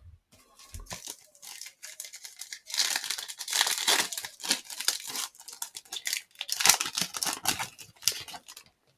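Crinkling and tearing of a trading-card pack's plastic wrapper, in irregular rustling bursts that begin about three seconds in.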